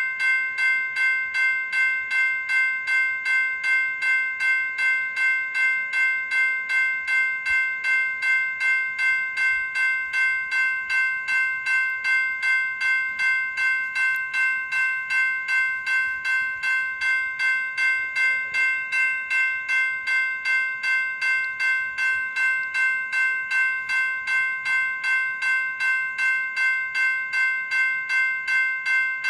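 General Signal Type 2 E-Bell, an electronic bell, sounding continuously: quick, evenly repeated bell-like strokes, about three a second, on a steady metallic chord of several tones.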